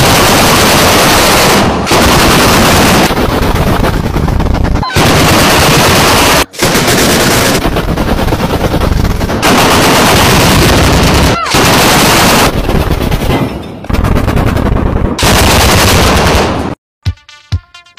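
Towed twin-barrel anti-aircraft autocannon firing long bursts of rapid automatic fire, several bursts of one to three seconds each with short breaks between. The firing stops about a second before the end.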